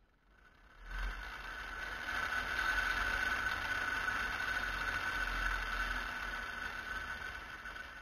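Line trolley running along an overhead ground wire: a steady mechanical whir with a high, even hum that starts about a second in.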